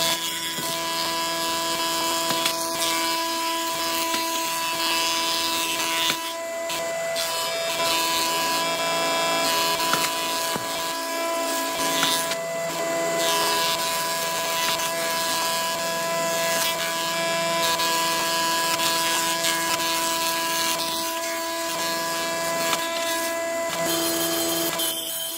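Thickness planer of a combination woodworking machine running steadily, its cutter head shaving wooden slabs as they are fed through. The motor hum stays constant while the cutting hiss dips briefly between boards, about three times.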